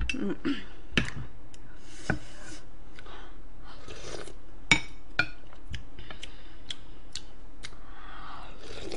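A spoon clinking and scraping against ceramic plates in scattered sharp clicks, the loudest about halfway through, with soft mouth sounds of eating in between.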